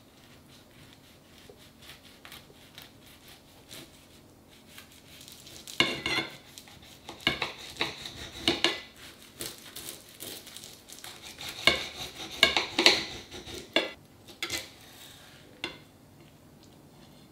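Knife and cake server cutting through a crisp-baked apple tart's pastry crust and scraping on the plate beneath: irregular crunching and clinking that starts about six seconds in and stops a little before the end.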